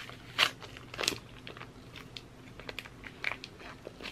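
Paper wrapper of a Brie cheese wheel crinkling and crackling as it is peeled open by hand, in a string of short, uneven rustles, the loudest about half a second and a second in.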